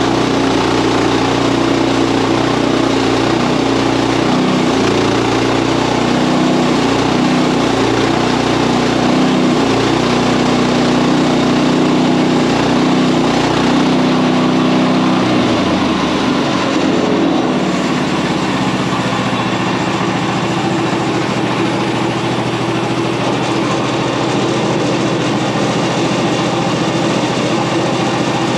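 Engine of an OS31 portable bandsaw sawmill running steadily while the mill saws a large American elm log. About halfway through, the engine's note changes and settles into a different steady pitch.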